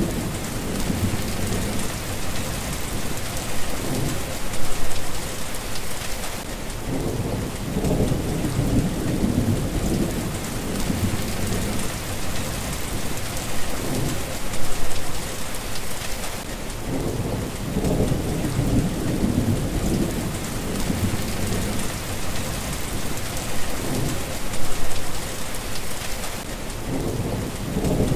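Steady rain falling, with low rolling thunder rumbling several times through it.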